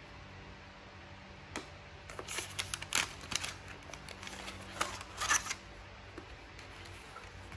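Hands handling a small paperboard box and lifting a pocket printer out of it: light clicks, scrapes and rustles in two clusters, one from about two to three and a half seconds in and another near five seconds.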